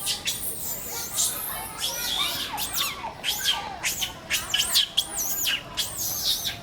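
Monkeys calling with many short, high-pitched squeals that rise and fall in pitch, overlapping and coming thick and fast through the middle.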